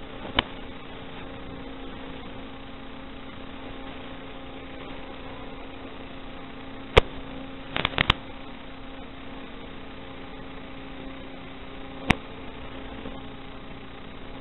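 Steady electrical hum over a hiss, with no change in pitch, broken by a few sharp clicks: a quick triple about eight seconds in and single ones near the start, at about seven seconds and near twelve. This is the FPV video link's audio channel as recorded by the goggles' DVR, carrying noise rather than motor sound.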